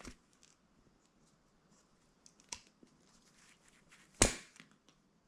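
A sandal and its lace being handled while the lace is threaded through the sole: soft rustles and small clicks, with a few sharp knocks, the loudest about four seconds in.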